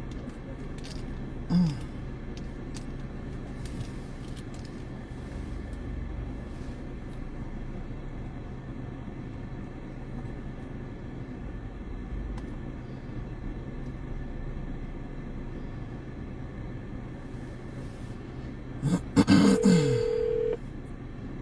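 Steady low rumble of a car's cabin, broken by a brief sound about a second and a half in. Near the end, a phone tone holds one steady pitch for about a second as a phone call is placed.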